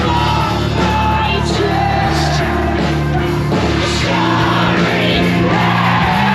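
Post-hardcore band playing live and loud, with a singer's long held lines over the band.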